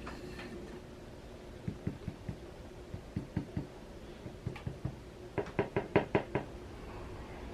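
Light knocks on a hard surface: a few scattered taps, then a quick run of about seven knocks near the end.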